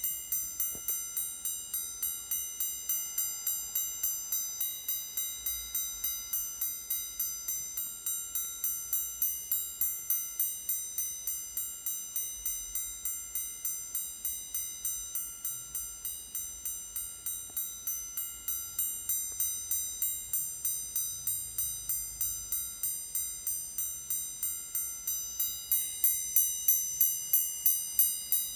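Ulysse Nardin Sonata Streamline's wristwatch alarm going off: its hammer strikes the cathedral gong about three times a second, each stroke ringing bright and metallic. It gets louder over the last few seconds.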